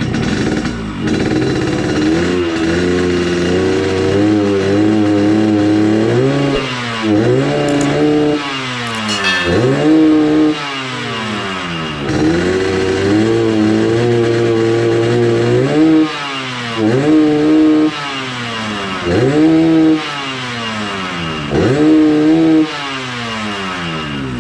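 Yamaha RX-King's single-cylinder two-stroke engine being blipped again and again, its pitch climbing and then falling back toward idle, while it is tuned for a deep 'ngorok' snoring exhaust note.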